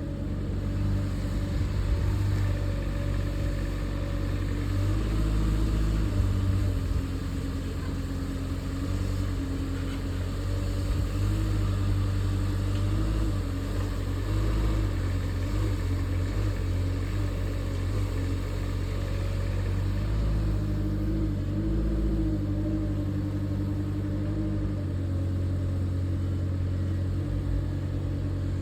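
LiuGong 2-tonne mini excavator's diesel engine running continuously, its note shifting up and down repeatedly as the hydraulics take and release load.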